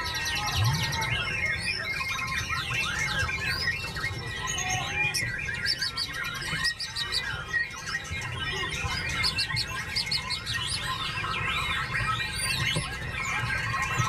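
White-rumped shama (murai batu) singing a fast, varied song: an unbroken stream of whistles, trills and quick rising and falling notes.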